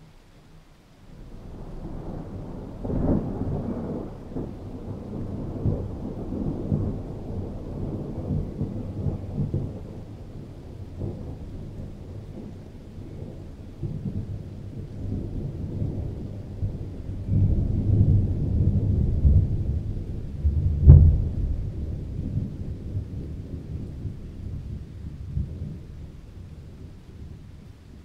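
Rolling thunder: a deep rumble builds about a second in and swells and eases in waves, with a sharp crack about two-thirds of the way through as its loudest point, then rumbles away toward the end.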